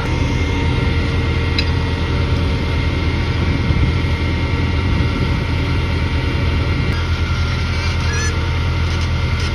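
An engine running steadily at idle, a low, even hum, with a few faint clicks and chirps over it.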